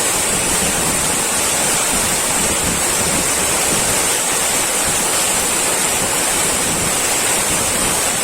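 Valley stream water rushing steadily over rocks, with a constant high hiss on top.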